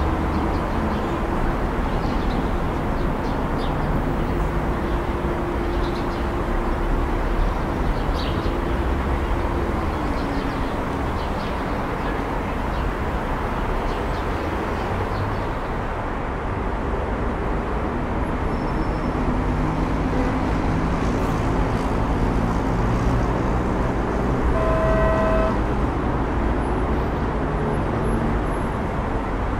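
Road traffic: the steady noise of passing cars with engines running. About 25 seconds in, a car horn gives one short toot of about a second.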